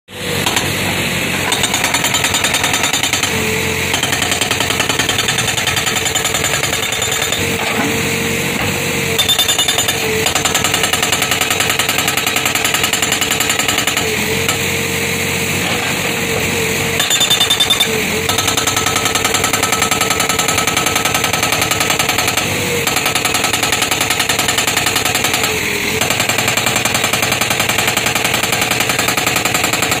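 ACE 80S hydraulic rock breaker on a Case backhoe loader hammering rock with rapid, steady blows, breaking off briefly every few seconds. The backhoe's engine runs steadily underneath.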